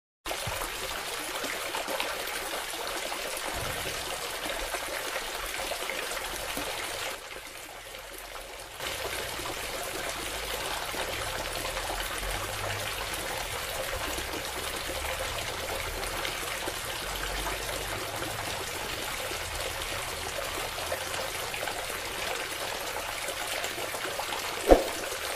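A stream of water pouring steadily from a small homemade pump's PVC spout and splashing onto the ground. The sound dips for about two seconds around a third of the way in, and a single sharp click comes near the end.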